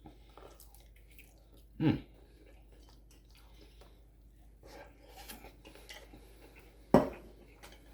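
A person chewing a mouthful of saucy chicken wing, with two short knocks: a dull one about two seconds in and a sharper, louder one about seven seconds in.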